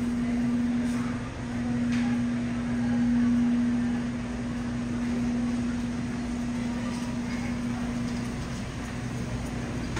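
Large grocery store's room tone: a steady low electrical hum from refrigeration and ventilation over a faint, even background wash, with a light click about two seconds in.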